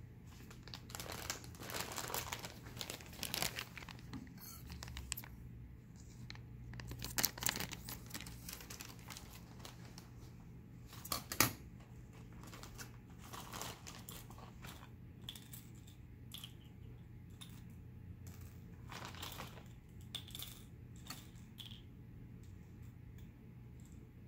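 Irregular crinkling and rustling, heaviest a couple of seconds in and again around seven seconds, with one sharp click about eleven seconds in, over a steady low hum.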